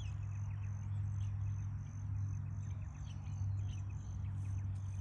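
Outdoor wildlife ambience: a high-pitched call repeats in short, even pulses, with a few faint chirps, over a steady low hum.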